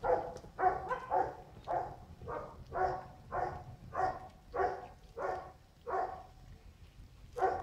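A cat meowing over and over, short calls about twice a second, with a brief pause near the end.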